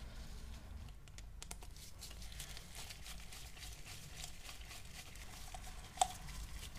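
Faint rustling and crinkling of latex-gloved hands and a cloth wiping a petrol-cleaned carburetor, with a single sharp click about six seconds in.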